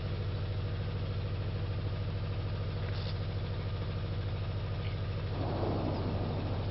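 Mount Etna humming: a steady low drone from the active volcano, with a rushing swell of noise about five and a half seconds in.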